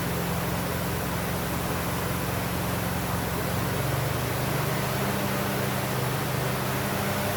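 350 small-block Chevy V8 idling steadily, with a slight change in its note about four seconds in. The distributor hold-down clamp is too loose, so the distributor creeps back with engine vibration and the ignition timing keeps drifting.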